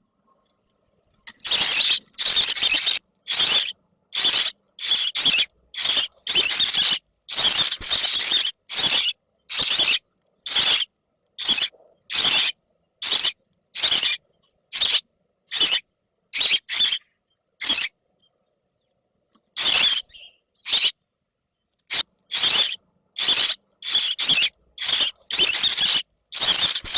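Shrill, raspy begging squeals of baby birds, coming in short bursts about one or two a second, with a pause of a few seconds past the middle.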